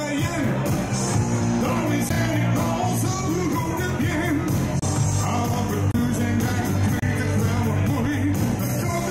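Live band music with a steady beat, keyboards and a male singer.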